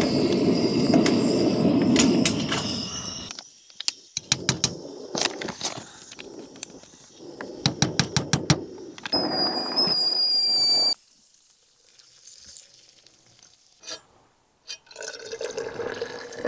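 Single-burner camp stove lit and burning with a steady rush of flame, then metal spoon and containers clinking as coffee grounds are scooped, a kettle whistling briefly, and near the end hot coffee poured from a steel pot into an insulated bottle, its pitch rising as the bottle fills.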